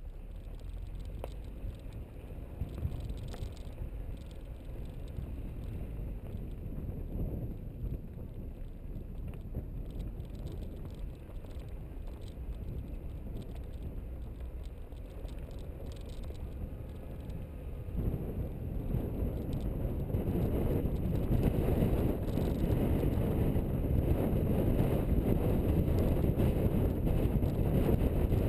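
Car driving down a loose gravel dirt track: a steady rumble of tyres over stones mixed with wind noise. It gets suddenly louder about two-thirds of the way through and stays louder.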